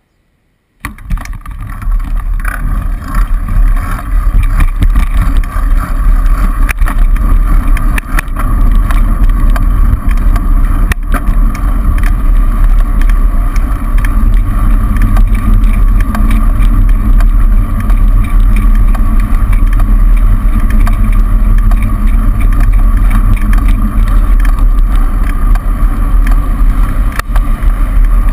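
Steady wind and road rumble on a bicycle-mounted camera riding in city traffic, with the noise of cars driving alongside; it starts suddenly just under a second in.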